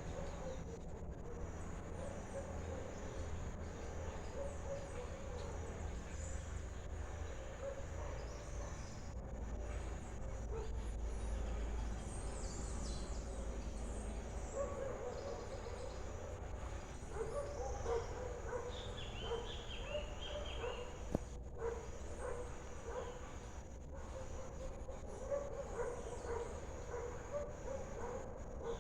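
Repeated short animal calls, with a run of higher chirps about two-thirds of the way through, over a steady low rumble.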